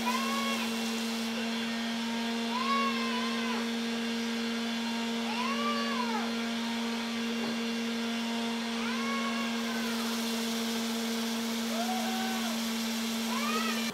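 Random orbital sander running steadily with a constant hum, and a whine that rises and falls about every three seconds. It cuts off right at the end.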